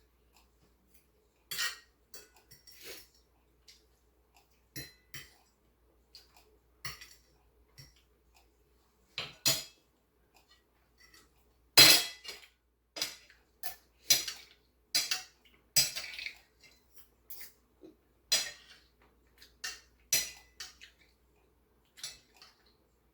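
Eating utensils clinking and scraping against a plate in scattered, irregular knocks, the loudest about twelve seconds in.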